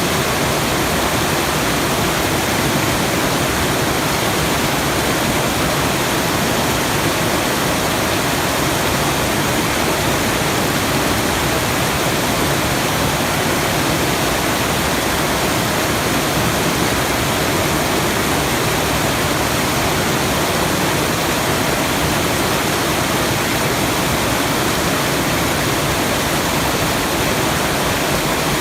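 Waterfall rushing steadily: an even, unchanging noise.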